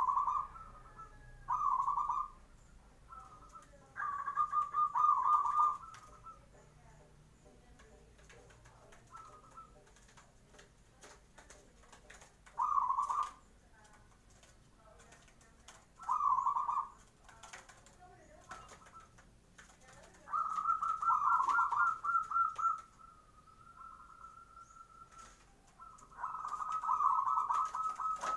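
Zebra dove (perkutut) singing: short phrases of rapid, rolling coos a few seconds apart, the last few drawn out longer. Faint clicks and rustles come in between.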